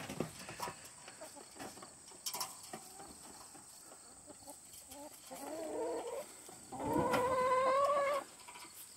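Hens calling as they come out onto the grass: faint scratching and pecking sounds, then a short wavering call about five seconds in and a longer, louder, steady drawn-out call about seven seconds in.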